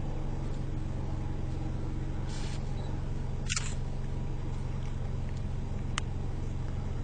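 Vehicle engine idling, a steady low hum heard from inside the van, with a sharp click about halfway through and a fainter one near the end.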